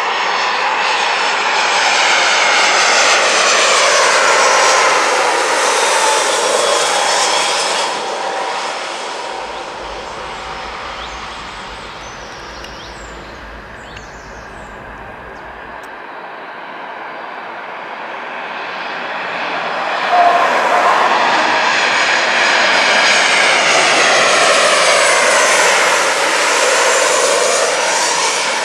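Two jet airliners on landing approach pass low overhead one after the other, first an Airbus A319 and then a Ryanair Boeing 737. Each is a swelling rush of jet engine noise with whining tones that slide down in pitch as it goes by, with a quieter lull between the two about halfway through.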